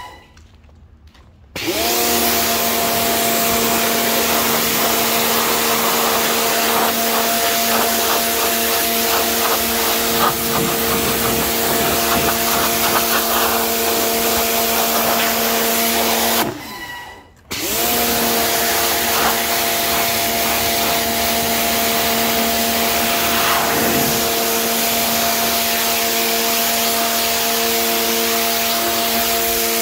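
Pressure washer running with a steady motor hum and the hiss of its jet hitting concrete. It cuts out twice, right at the start and about 17 seconds in, for about a second each time, then starts up again.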